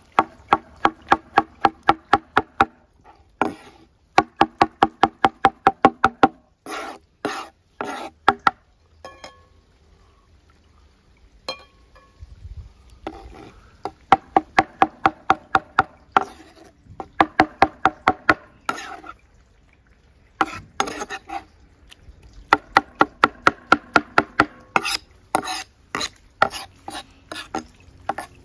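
Knife chopping food rapidly on a cutting board, about five strokes a second, in runs of several seconds broken by short pauses, each stroke ringing slightly off the board.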